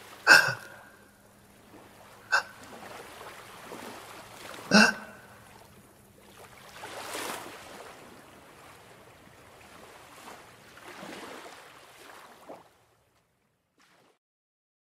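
A person gasping sharply three times, as if struggling for air, over a rushing water-like noise that swells and fades twice, then stops suddenly near the end.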